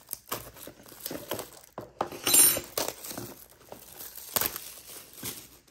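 Plastic shrink wrap being slit and torn off a cardboard box, crinkling in irregular bursts, loudest a little over two seconds in.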